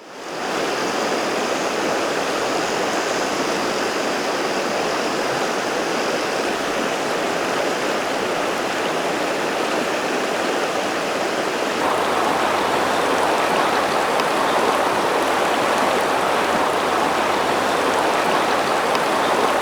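River water rushing steadily over rocks, getting fuller and a little louder about twelve seconds in. A faint high insect trill sits over it in the first few seconds.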